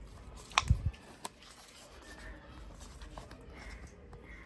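Cardboard packaging of an Apple Watch Sport Band being handled and opened: quiet paper-on-paper scraping, with a cluster of sharp clicks and a soft thud a little over half a second in and another click shortly after.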